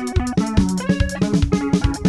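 Museve (sungura) band music from Zimbabwe: electric guitar notes picked over a fast, steady drum-kit beat.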